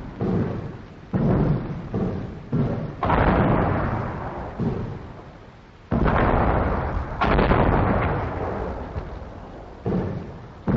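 British artillery barrage, the guns firing in a quick, irregular run of blasts at first, then heavier reports a few seconds apart with long rumbling tails, heard on a 1945 field recording.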